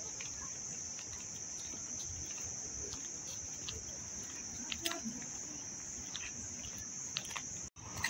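Insect chorus: a steady, high-pitched buzz holding at one pitch, with a few faint ticks over it. It drops out for an instant near the end.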